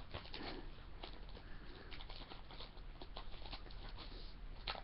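Light rustling with many small clicks and taps from trading cards being handled.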